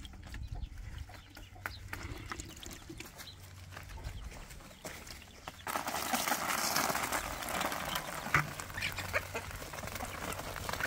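Chickens clucking. About halfway in, a sudden rushing splash as water and live minnows are poured out of a bucket onto a tarp, followed by scattered sharp pecks and taps.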